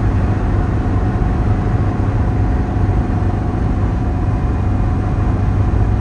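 Car driving at speed, heard from inside the cabin: a steady low rumble of tyres and engine that does not change.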